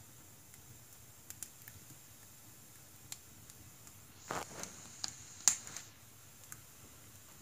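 Logs burning in a wood stove: scattered sharp crackles and pops, with a busier run of pops and a short hiss a little past the middle, the loudest a single sharp pop near the end of that run.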